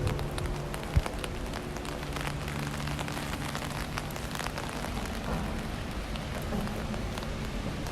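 Rain falling on an umbrella, a steady hiss dotted with many small drop ticks, over a low steady hum. A single sharp thump about a second in.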